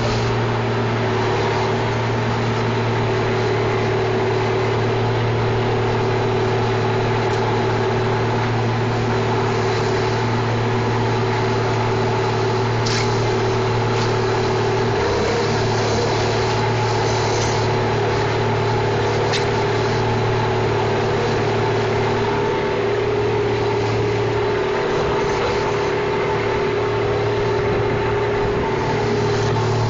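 John Deere 540E cable skidder's diesel engine running steadily, heard from inside the cab. Its note shifts briefly about halfway through and again later on, and a few sharp clicks sound over it.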